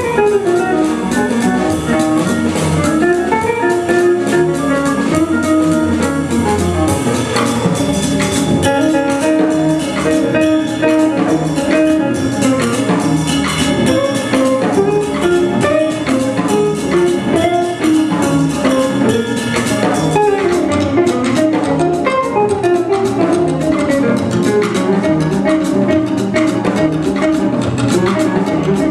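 Jazz organ trio playing live: electric guitar, drum kit and Hammond organ, running on without a break.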